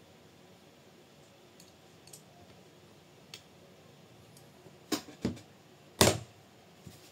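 Small tools and chassis parts being handled on a workbench: a few light clicks, then sharp clacks about five seconds in and a louder knock about a second later.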